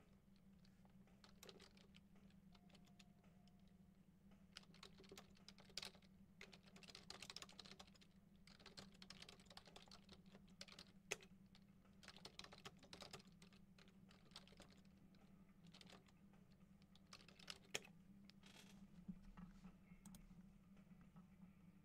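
Faint typing on a computer keyboard, in scattered runs of key clicks, over a low steady hum.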